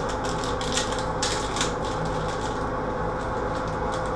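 Rapid light clicking and crackling from hands handling the door of a new frameless medicine cabinet, dense for the first couple of seconds and sparser after, over a steady low hum.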